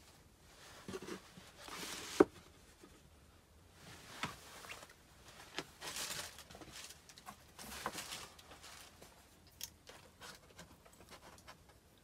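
Packaging being handled: cardboard and plastic wrapping rustling and crinkling in several short spells, with scattered light clicks and one sharp knock about two seconds in.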